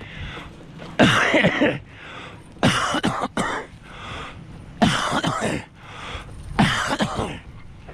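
A man catching his breath after exertion: four loud, rasping, voiced huffs with a cough-like edge, about two seconds apart.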